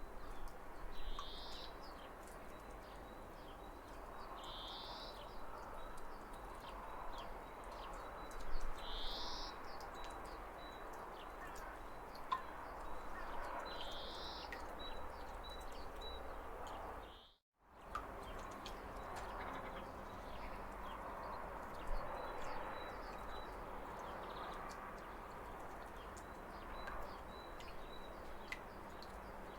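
Steady rushing of a waterfall with birds chirping over it: a few short rising chirps in the first half and strings of quick high notes. The sound cuts out completely for a moment a little past halfway.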